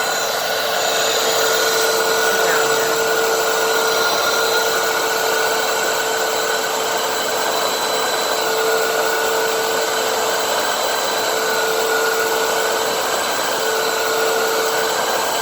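Hoover WindTunnel 3 High Performance upright vacuum cleaner running with its floor nozzle on low-pile carpet: a steady rush of air under an even motor whine.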